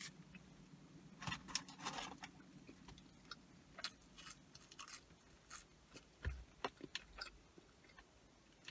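Faint close-up chewing of a burger and fries: irregular soft wet clicks and small crunches of the mouth at work.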